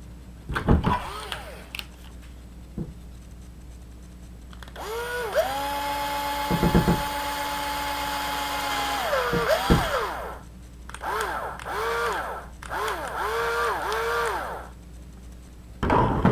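Traxxas 1/16 E-Revo's electric motor and geartrain spun up on the bench: a whine that rises, holds steady for about four seconds and falls away, then four short throttle blips, each rising and falling. A few handling knocks come before and after. It is a test run of the freshly shimmed rear differential, whose gear mesh is now tighter.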